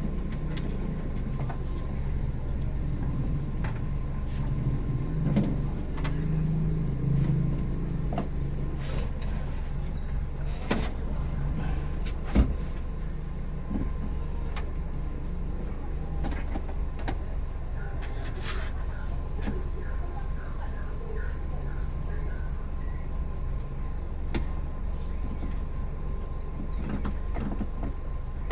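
Grand Livina's driver's-door power window motor running, over a steady low hum, with scattered clicks and knocks; the loudest knock comes about twelve seconds in.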